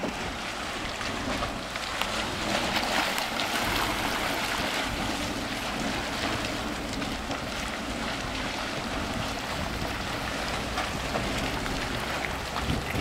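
Dragon's Mouth Spring, a hot spring at the mouth of a cave, churning steadily as steam and gas burst up through the water and slosh it against the cave walls, with a low rumble underneath.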